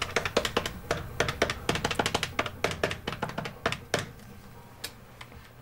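Rapid typing on a keyboard: quick, uneven key clicks several a second, stopping about four seconds in, with one last click a little later. Quiet background music runs underneath.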